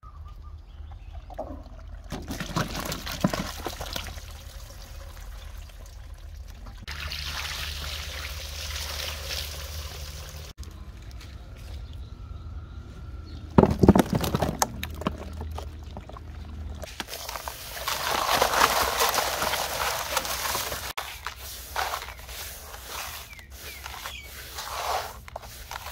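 Water pouring and sloshing in a plastic basin, with a loud sudden splash about halfway through as catfish are tipped in from a basket. Near the end, a hand rubs the fish through coarse salt with a gritty crunching.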